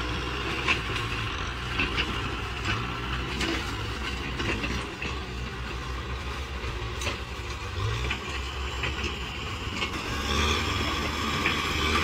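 Kubota M6040 tractor's diesel engine running steadily as the tractor pushes soil with its front dozer blade, with a few faint clicks over the top. The engine grows louder near the end.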